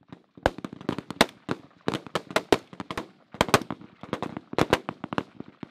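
Rifle fire from several rifles on a firing line: many sharp shots, irregularly spaced and often overlapping, several a second, some loud and close, others further down the line.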